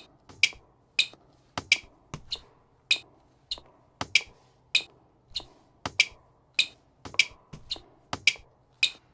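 Finger snaps in a steady rhythm, roughly every half second, some of them doubled, with nothing else playing but a faint low hum.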